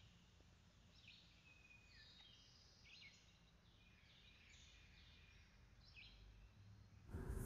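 Faint birdsong: short chirps and whistles repeating every half second or so, over a low hum. Near the end a much louder, noisy sound cuts in.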